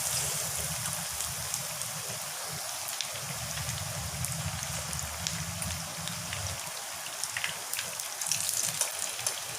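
Batter-coated bread slices deep-frying in hot oil: a steady sizzle with scattered crackles that grow busier near the end. A low hum underneath stops about six and a half seconds in.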